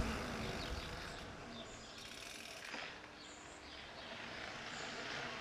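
Wind and tyre-rolling noise from a mountain bike coasting on pavement, fading over the first few seconds as the bike slows to walking pace. Faint bird chirps are heard in the background.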